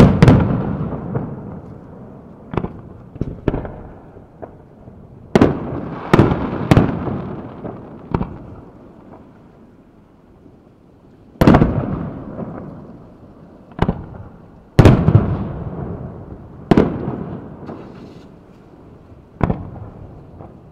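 Aerial firework shells going off at irregular intervals: about a dozen sharp bangs, the biggest at the start and again around five, eleven and fifteen seconds in, each trailing off in a long rolling rumble.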